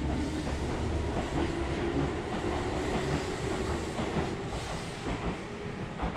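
Keihan electric commuter train running past the platform: a steady rumble of wheels on rail with a faint hum. It grows quieter near the end as the last car goes by.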